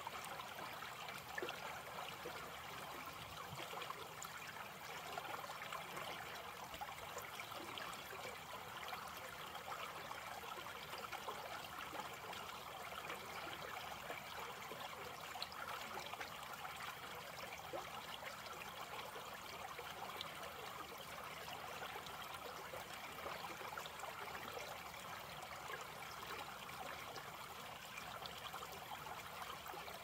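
Small shallow creek trickling steadily over a low drop between stones and tree roots, a continuous babble of running water.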